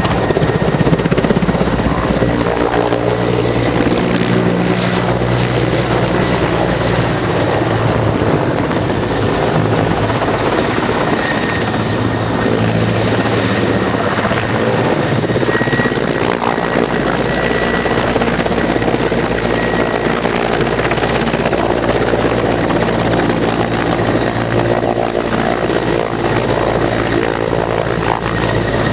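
Mil Mi-8 helicopter flying low and manoeuvring: the steady beat of its five-blade main rotor over the running of its twin turboshaft engines, with a steady high whine.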